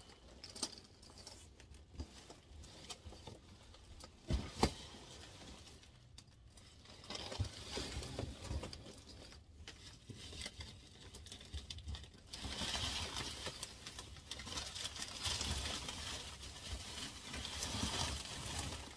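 Plastic bubble wrap and plastic sheeting rustling and crinkling as they are handled, with scattered clicks and one sharp knock about four and a half seconds in. The rustling gets louder and denser in the last third.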